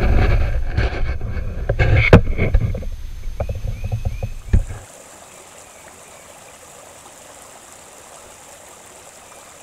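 For the first few seconds, heavy low rumbling noise from a GoPro in its waterproof case, with sharp crunches and knocks of footsteps in dry leaves. About five seconds in, this cuts off suddenly to the steady, quieter hiss of a shallow creek running over stones.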